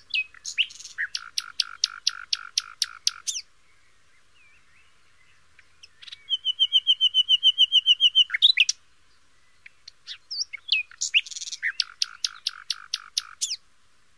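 A songbird singing in three phrases: a quick run of repeated notes, then about two seconds of a fast, even trill, then the first run of notes again near the end.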